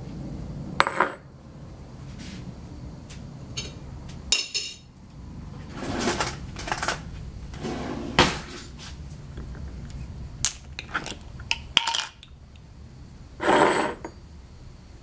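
A ceramic teapot, a glass jar and its metal screw lid handled on a tiled counter, with a spoon: a string of separate knocks and clinks, and a half-second rasp near the end.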